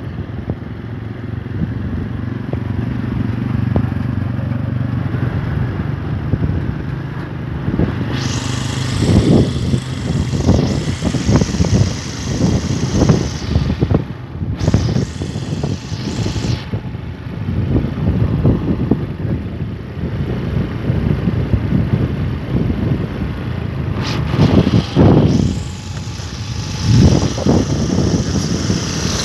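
Small motor scooter engine running steadily as it rides along, with wind buffeting the microphone in loud gusts from about eight seconds in.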